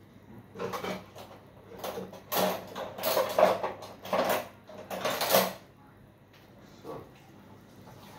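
A run of about six short kitchen handling noises, one after another in the first two thirds: sugar being spooned into a bowl of lemon and ginger juice.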